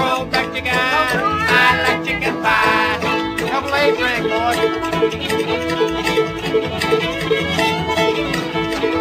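Old-time string band playing an instrumental break: a fiddle carries a sliding, wavering lead over banjo and guitar, with upright bass keeping a steady beat.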